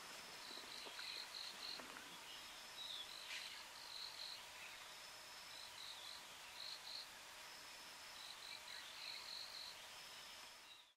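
Faint outdoor ambience of insects chirping in short repeated runs, with a thin high note that recurs every couple of seconds.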